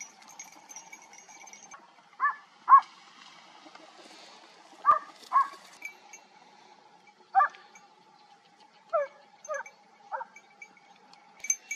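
Hunting hounds barking: about eight short, yelping barks, mostly in twos and threes, with the loudest a few seconds in.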